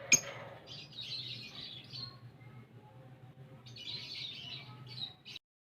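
Fischer's lovebirds chirping in two bouts of rapid, high-pitched chatter over a steady low hum. There is a sharp click at the very start, and the sound cuts off abruptly near the end.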